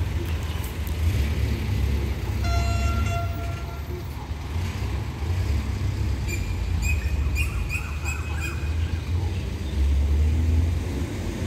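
Station-platform ambience: a steady low rumble, a single horn toot lasting a little over a second about two and a half seconds in, and a bird chirping repeatedly from about six to nine seconds in.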